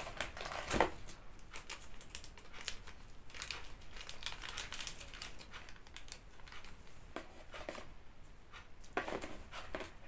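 Paper and plastic packaging crinkling and rustling as a new camcorder is unboxed: a run of short crackles and rustles, louder about a second in and again near the end.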